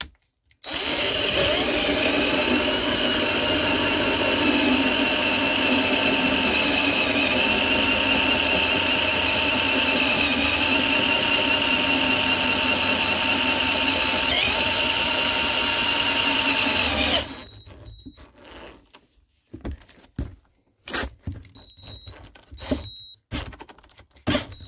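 Black and Decker 20V cordless drill running a 40 mm metal hole saw into a wood board, cutting steadily under load for about sixteen seconds, its pitch wavering slightly, then stopping abruptly. A few faint knocks follow.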